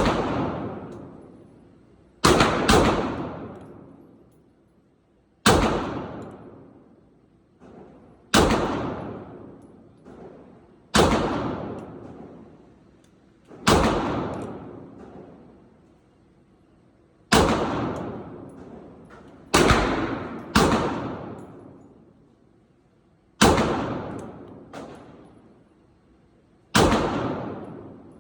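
Gunshots fired one at a time at a shooting range: about a dozen loud single shots, mostly two to three seconds apart with a few quicker pairs, each trailing off in a long echoing decay.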